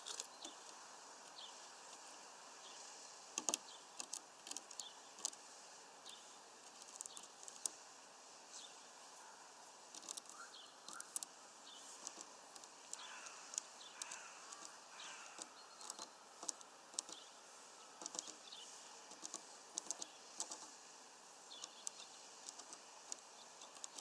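Faint, irregular light ticks and taps, sometimes several in quick succession, with a few faint chirps about halfway through.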